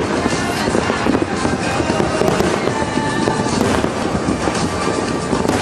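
Aerial firework shells bursting and crackling in a continuous, dense barrage.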